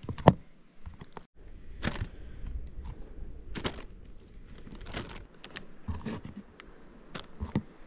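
Scattered knocks and clicks of cooking gear and containers being handled while fish is prepared for frying, with a sharp click just after the start.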